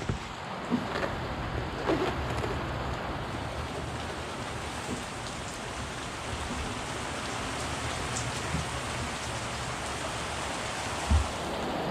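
Steady rain falling hard, an even hiss, with a few dull thumps; the loudest comes about a second before the end.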